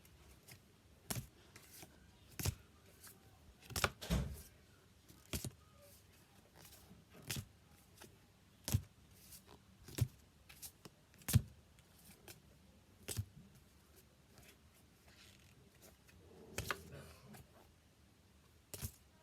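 Trading cards being handled one after another, with a sharp card snap or tap about every second and a half.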